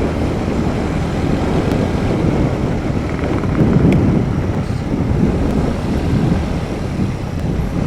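Royal Enfield Bullet's single-cylinder engine running steadily on the move, with wind rushing over the microphone.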